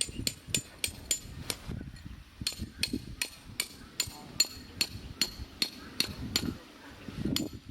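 Rapid, regular metallic tapping, about three to four sharp ringing strikes a second, over a low rumble.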